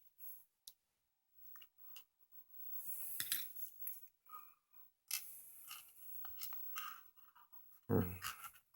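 Small screw being turned back into a multimeter's plastic case: scattered clicks and stretches of scraping and crunching, with a louder knock near the end.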